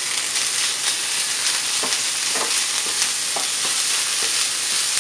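Chopped onion and minced garlic sizzling steadily in hot sunflower oil in a steel pan while being stirred, with a few faint clicks of the stirring against the pan.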